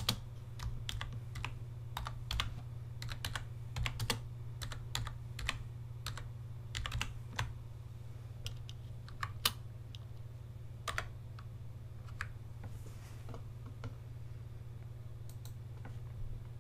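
Typing on a computer keyboard: irregular keystroke clicks, quick runs for the first ten seconds or so, then only a few scattered keys. A steady low hum runs underneath.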